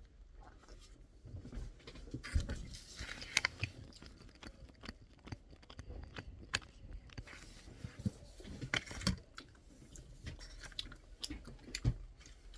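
Close-up eating sounds of biting into and chewing a frozen rice-cake ice cream (chapssal-tteok ice): irregular soft crunches and sharp little clicks from the mouth, made on purpose for ASMR.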